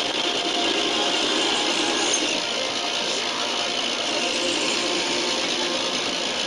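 Capstan lathe running with a turret tool fed by hand lever, cutting into a spinning metal workpiece: a steady cutting noise over the machine's hum as chips come off.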